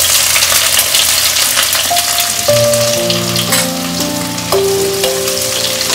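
Sliced onion, garlic and dried red chillies frying in hot oil in a kadhai: a loud, steady sizzle, sharpest as the onion goes in. Background music with held notes comes in about two seconds in, over the sizzle.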